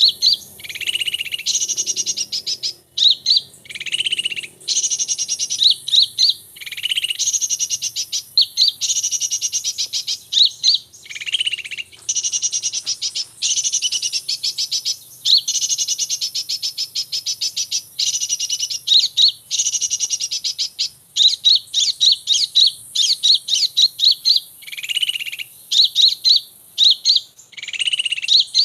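Small birds chirping and trilling, high-pitched and fast, in short phrases repeated one after another with brief gaps.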